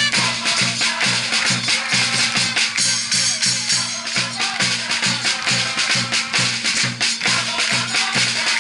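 Music with a steady, fast beat, about two to three beats a second, with a dense hiss over it.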